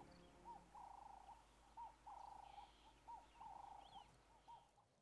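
Faint bird calling: a run of short hooting notes and slightly longer held notes at one pitch, repeated about every half second to a second, fading out near the end.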